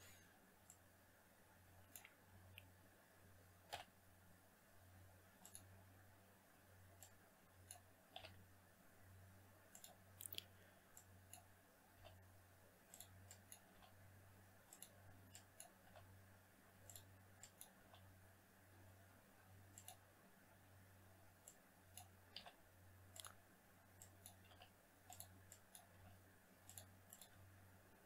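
Near silence with faint, irregular clicks of a computer mouse and keyboard being worked, over a low steady hum.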